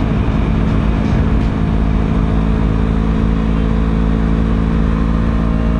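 Yamaha R3 parallel-twin motorcycle engine holding a steady highway cruising speed, its pitch unchanging, under a heavy low rumble of wind on the helmet microphone.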